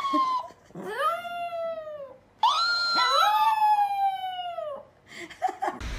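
A pet animal howling: three long drawn-out calls, each rising briefly and then sliding down in pitch, followed by a few short calls near the end.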